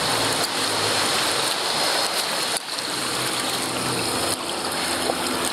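Water rushing and splashing along a kayak's bow and paddle as it is paddled steadily, a continuous wash with a brief drop about two and a half seconds in.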